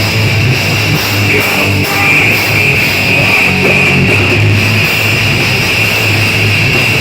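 A rock band playing heavy, loud music built around electric guitar, recorded live.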